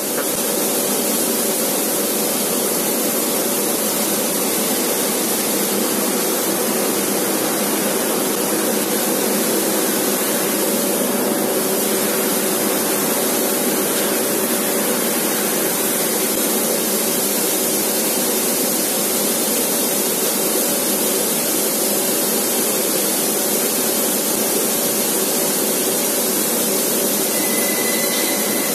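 A 500 W CNC fiber laser cutting machine cutting 3 mm carbon steel sheet: a loud, steady hiss from the cutting head's assist-gas jet and spark stream, with a faint steady hum underneath.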